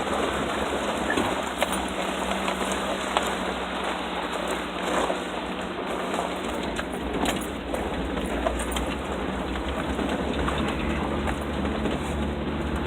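A vehicle driving over a rough dirt road: steady engine hum with tyre noise and scattered stones clicking and knocking under the wheels.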